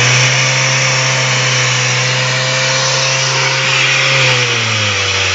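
Small portable fire pump engine running hard at high revs, steady in pitch, settling to slightly lower revs about four and a half seconds in.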